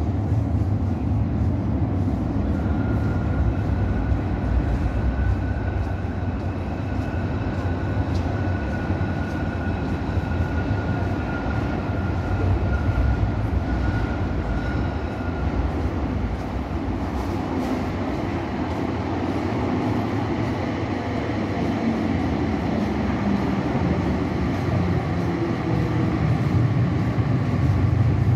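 Tram rumbling through an underground tunnel station, with a steady high whine in the middle, growing louder near the end as the tram pulls into the platform.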